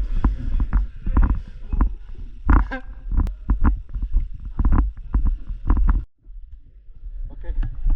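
Deep rumble and irregular knocks on the microphone, as from handling or wind on a moving camera. About six seconds in it cuts off suddenly, then comes back quieter.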